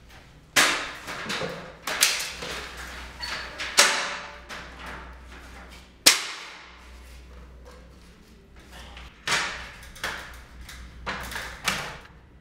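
Metal stepladder being carried and set up: a series of knocks and clanks, each ringing on briefly in a hard hallway. The sharpest knock comes about six seconds in, with a cluster near the end.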